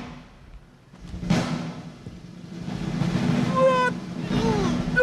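Live show-band sound effects: a sharp crash about a second in, then a sustained low drum roll, with short pitched electronic tones near the end and one tone gliding downward.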